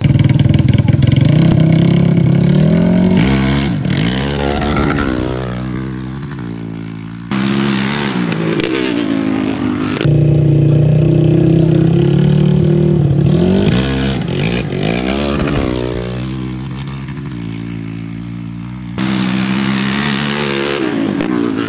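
Sport ATV engines at full throttle, accelerating hard from a drag-race launch, the pitch climbing and dropping back again and again as they go through the gears. The sound jumps abruptly a few times between separate runs.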